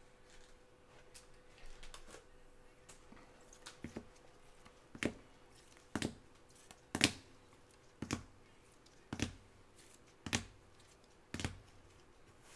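Hard plastic top loaders clicking against one another as cards are flipped one at a time from the front to the back of a hand-held stack: a few faint handling taps, then a run of about seven sharp clicks, roughly one a second, starting about five seconds in.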